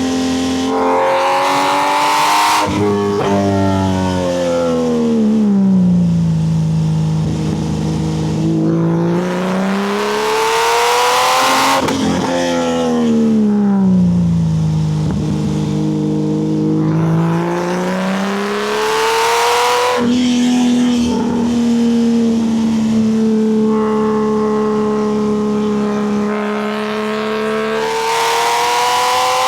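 Porsche 964's air-cooled flat-six with a custom exhaust, accelerating hard. The revs climb and drop suddenly several times as it shifts up, fall away and build again between pulls, and hold steady for a stretch about two-thirds through before climbing again near the end.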